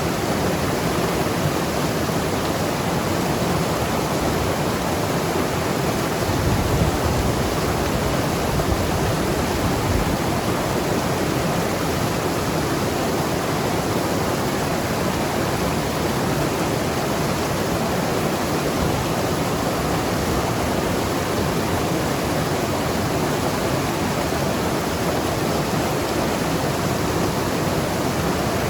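Mountain river rushing and gurgling over rocks, a steady full wash of water with a few brief deeper surges.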